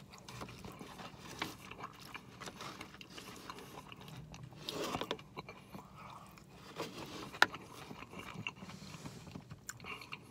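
A man quietly chewing forkfuls of a cilantro-lime cauliflower rice bowl, with soft mouth sounds and scattered light clicks; one sharper click about seven seconds in.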